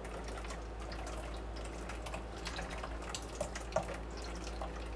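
Milk pouring from a carton into batter in a bowl while a wooden spoon stirs it, with scattered small splashes and clicks of the spoon.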